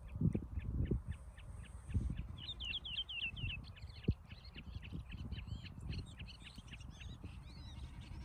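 Small birds chirping in quick, repeated short calls, with a fast burst of calls about two and a half seconds in. A low, uneven rumbling runs underneath.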